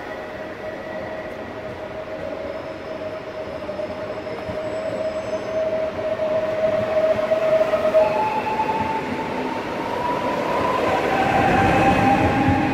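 A PKP Intercity ED161 (Stadler FLIRT) electric multiple unit moving along the platform close by, with rail and running rumble under the electric whine of its traction motors. The whine jumps higher about eight seconds in and keeps rising, as with a train picking up speed, and the rumble grows louder near the end as the end car passes.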